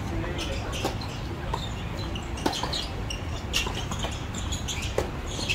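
Tennis rally on a hard court: a few sharp pops of racket strings striking the ball, a second or more apart, with short high chirps over a steady outdoor background.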